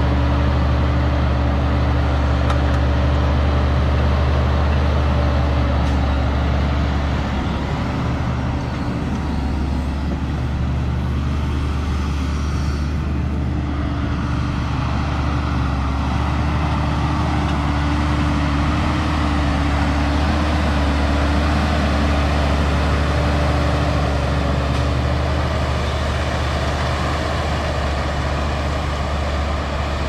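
Valtra T202 tractor's six-cylinder diesel engine running steadily as it pulls a seven-furrow reversible plough. The drone grows a little quieter in the middle as the tractor moves off, then louder again as it comes back.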